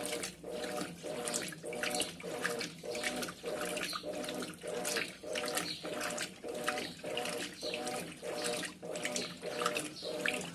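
Brastemp BWT12A 12 kg top-loading washing machine in its wash cycle, churning a load of clothes through the water: splashing and sloshing over a motor hum that pulses about twice a second.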